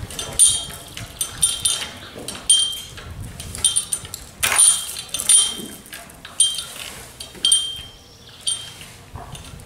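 Metal clinking and jingling from a horse's chain cross-ties and tack fittings as the horse is tacked up: short, irregular, ringing clinks about one or two a second.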